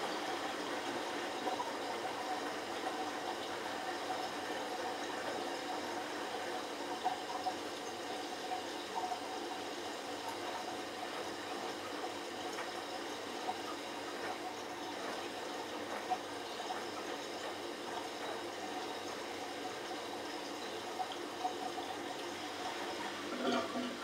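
Bosch Logixx WAS32461GB washing machine at the start of its final spin, the drum turning slowly with water still in it while it drains: a steady wash of water noise with occasional light clicks, and a brief louder knock near the end.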